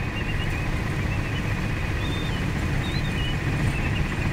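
Steady low road and engine rumble heard from inside the cab of a Dodge camper van on the move, with faint, high, wavering squeaks over it now and then.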